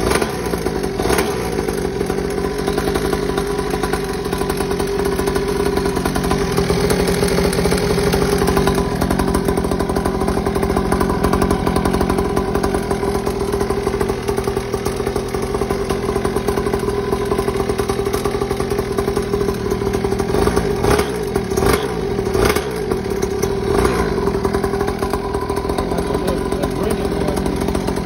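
Xpro 50cc single-cylinder two-stroke mini pit bike engine idling steadily. A few sharp knocks come about three-quarters of the way through.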